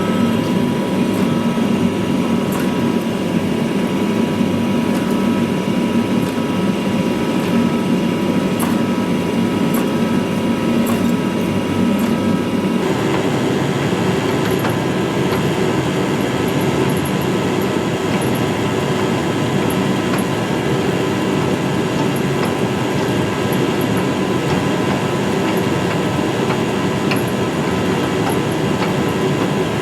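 Steady, loud roar of workshop machinery with a few faint steady whining tones; its character changes abruptly about 13 seconds in.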